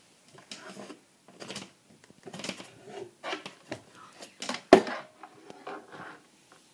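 Sneakers and their insoles being handled: irregular rustling and light knocks, with one sharper, louder knock a little under five seconds in.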